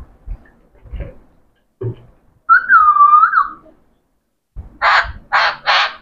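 Alexandrine parakeets calling: a few soft low thumps, then a long whistle that rises and falls about two and a half seconds in, then three loud harsh squawks in quick succession near the end.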